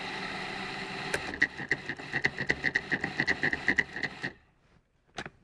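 Food processor running as it grates carrots: a steady motor hum that turns into a rapid, regular clatter about a second in, then the motor switches off near the end.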